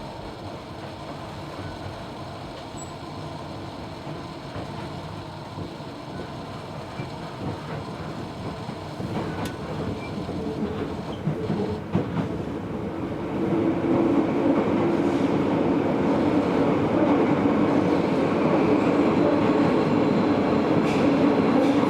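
Running sound inside a Tobu 70000 series electric commuter train car: steady wheel-on-rail and traction noise that grows louder about thirteen seconds in and stays loud.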